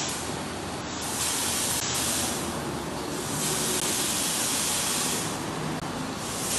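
Automatic rollover car wash running, its rotating brush and water spray making a steady hiss that swells and eases a few times.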